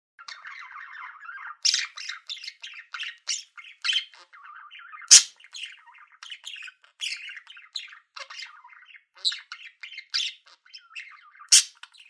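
Budgerigar chatter: a running warble of quick chirps, broken by many short, sharper calls, the loudest about five seconds in and again near the end.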